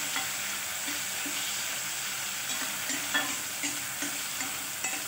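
Chopped onions and tomatoes sizzling in hot oil in a stainless steel kadhai, with a steady hiss. They are stirred with a spatula that scrapes and taps against the pan now and then.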